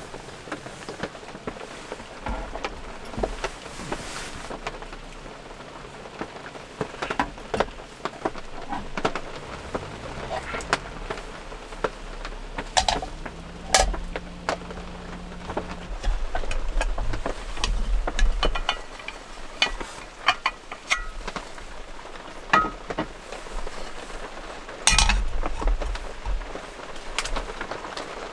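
Scattered clicks, taps and knocks of camping gear being handled on a wooden table: a gas canister and a portable gas burner being set out, with a brief low hum in the middle and a loud clatter of knocks near the end. Underneath, a steady patter of rain or wet snow on the camper.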